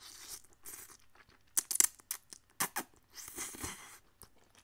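Close-up mouth sounds of a man chewing a big mouthful of spaghetti in tomato sauce: wet chewing and smacking, with sharp smacks about one and a half and two and a half seconds in.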